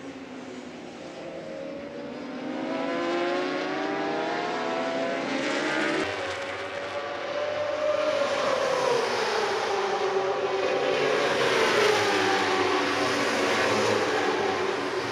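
Several racing superbikes' four-cylinder engines at high revs, their pitch climbing and dropping as they accelerate and change gear. The sound gets louder after about two seconds and again in the second half.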